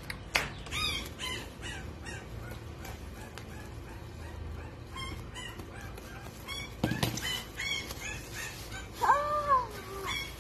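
Repeated short, high cries from a small animal, with a longer wavering cry near the end. A crinkle of plastic bag comes about seven seconds in.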